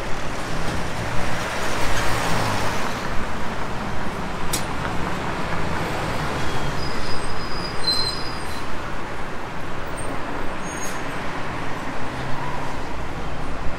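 Street traffic: passing cars and other vehicles making a steady hum of engines and tyres. Two sharp clicks can be heard, about four and eleven seconds in, and brief high tones about seven to eight seconds in.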